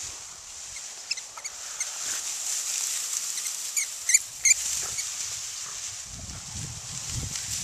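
A rat terrier pushing through a clump of dry ornamental grass, the grass rustling, with a few short high-pitched squeaks, the loudest three close together about four seconds in.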